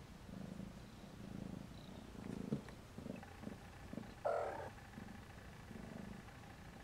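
Cat purring, a faint low rumble that swells and fades about once a second, with a few small clicks and a brief scratchy sound about four seconds in.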